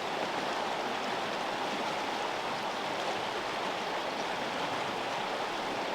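River water flowing, a steady, even rush with no breaks or sudden sounds.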